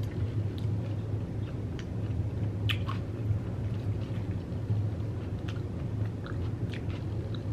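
Close-up chewing of a mouthful of Hot Cheetos taco bowl, with scattered short crunches and clicks over a steady low hum.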